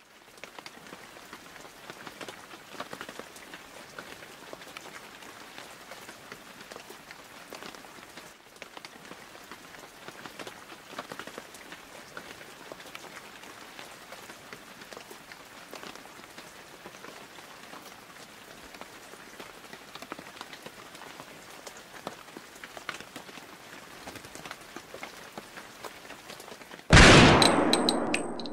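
Steady rain-like patter made of a soft even hiss with scattered light ticks. About twenty-seven seconds in, a sudden loud burst of noise cuts in and fades away over a second or so.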